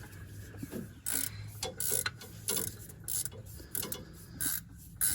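Ratchet wrench being worked back and forth on a bolt of the water pump bracket, its pawl clicking in short spells about every two-thirds of a second, one on each back-stroke, as the bolt is loosened.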